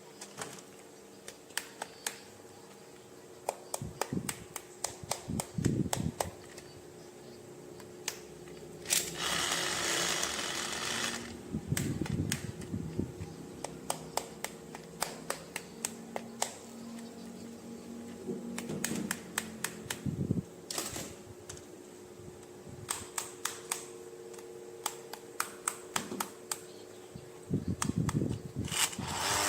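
Plastic toys and packaging being handled: scattered clicks and taps of hard plastic, with a burst of rustling packaging about nine seconds in and again near the end.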